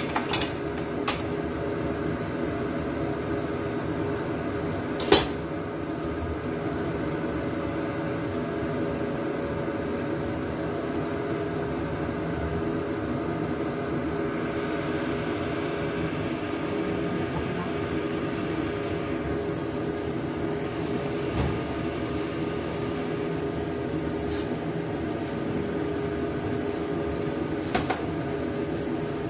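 Steady kitchen hum with several fixed tones, from a fan or appliance running, under a few sharp clinks of metal utensils against stainless steel. The loudest clink comes about five seconds in, and two more come near the end.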